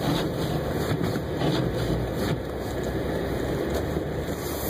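Road noise inside a moving car's cabin on a snowy road: a steady low rumble of engine and tyres.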